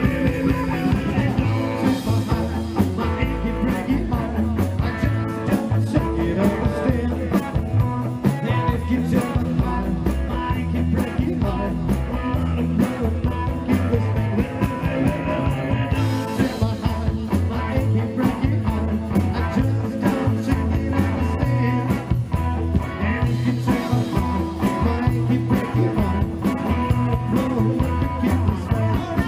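Live rock 'n' roll band playing, amplified: electric guitar over a steady beat and bass line, with singing.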